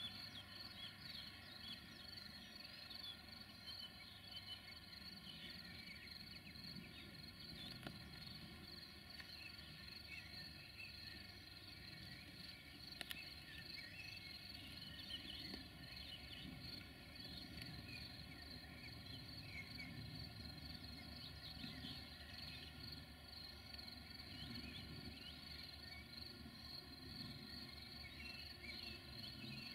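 Quiet countryside ambience: a steady high insect trill with scattered bird chirps, over a faint low rumble.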